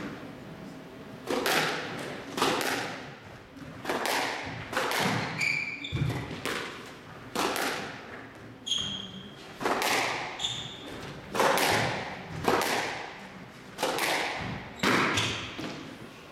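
Squash rally: the ball cracks off rackets and the court walls about once or twice a second, each hit echoing in the enclosed court. A few short squeaks of court shoes on the wooden floor come in between.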